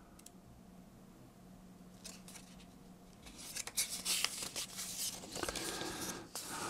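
Folded paper instruction leaflet rustling and crackling as it is unfolded and handled, starting about two seconds in and getting louder from about three seconds on.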